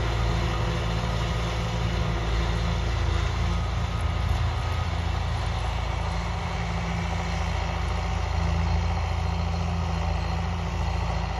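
David Brown 1494 tractor's four-cylinder diesel engine running steadily under load, driving a disc mower as it cuts grass.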